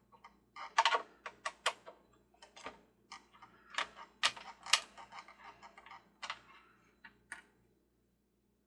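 Irregular clicks and taps of screws and a screwdriver on the plastic frame of a Mr. Christmas Ferris wheel as screws are put into its legs. The clicks stop near the end.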